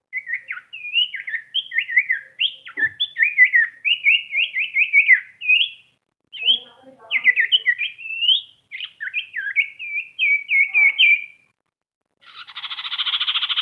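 Common iora (cipow) singing in the sirtu style: quick, warbling whistled notes that rise and fall, in two long runs with a short break between them. Near the end comes a harsh, buzzy rattle.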